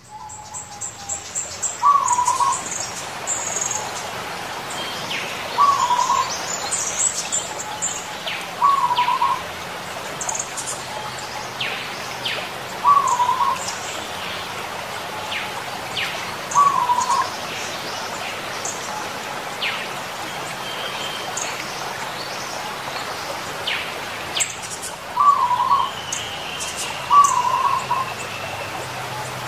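Zebra dove (perkutut) cooing: a short phrase of notes repeated about seven times, every three to four seconds, with a long pause in the middle. Other small birds chirp high and briefly between the phrases, and a longer whistle falls slowly near the end.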